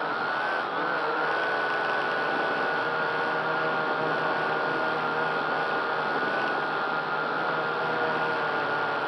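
Syma X8C quadcopter's motors and propellers whining steadily in flight, heard close up from the camera mounted on the drone.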